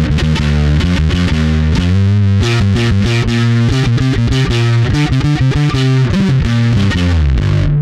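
Distorted electric bass played through an EarthQuaker Devices Blumes Low Signal Shredder pedal: a riff of quickly changing low notes.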